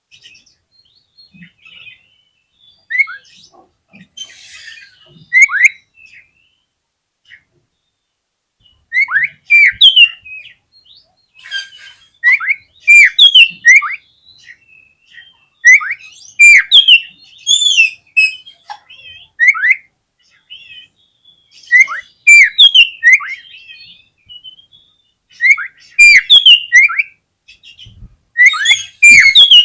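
Oriental magpie-robin singing: loud, repeated phrases of sharp whistled notes that slide downward, a phrase every second or two. The song is sparse at first and comes thick and fast from about a third of the way in.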